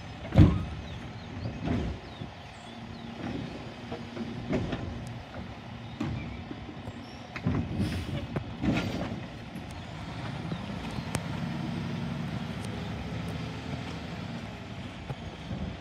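Garbage truck's engine running under the hydraulic Labrie Automizer side arm as it handles wheeled trash carts: a loud thud about half a second in, a few more knocks, then a cluster of heavy bangs around the middle as a cart is lifted and shaken out into the hopper. Near the end the engine runs higher for a few seconds.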